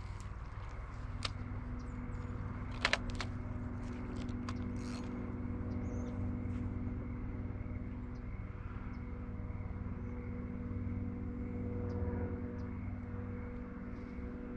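Steady low engine hum from a motor running in the distance, swelling a little near the end, with a few sharp clicks on top, the loudest a quick double click about three seconds in.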